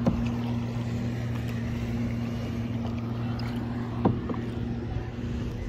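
Steady low hum of a motorboat engine over the wash of water, with two sharp knocks, one at the start and one about four seconds in.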